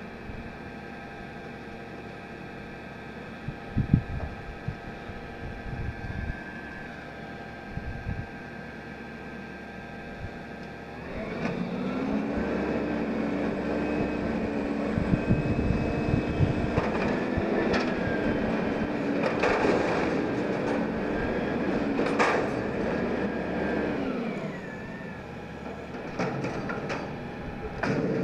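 Peterbilt 320 front-loader garbage truck idling while a dumpster is banged into position. About 11 seconds in, the engine revs up and holds a higher note to drive the hydraulics as the forks lift and empty the container, with clanks and bangs of the bin and trash. Near 24 seconds it drops back to idle, with a few more clanks as the dumpster is set down.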